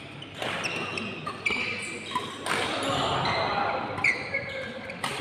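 Badminton doubles rally: a run of sharp racket hits on the shuttlecock, mixed with short high squeaks of court shoes on the floor.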